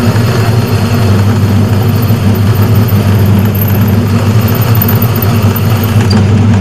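Metal lathe running steadily with a constant motor hum while boring out the bore of a steel sleeve.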